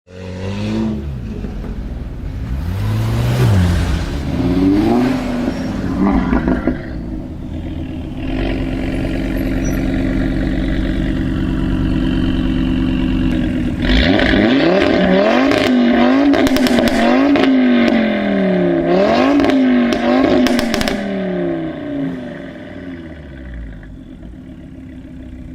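Audi RS3 8V's five-cylinder engine through a Milltek aftermarket exhaust, revved up and down several times with a steadier stretch in the middle. From about halfway the revs come in quick blips, with the exhaust popping and crackling as they drop.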